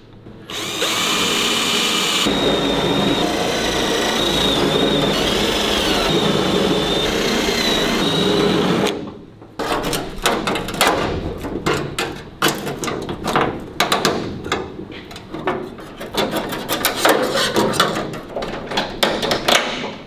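A drill runs steadily for about eight seconds, cutting out a spot weld in a steel car-door panel. It then stops, and a run of sharp metallic clanks and scrapes follows as the spot-welded strip of sheet metal is pried and peeled off the door.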